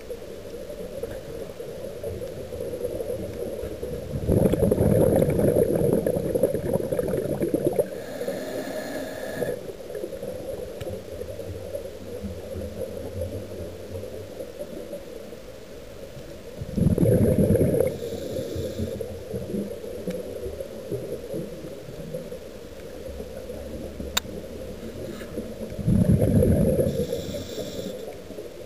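Scuba diver breathing through a regulator underwater: three loud bursts of exhaled bubbles, roughly ten seconds apart, each followed by a short hiss, over a steady low underwater rumble.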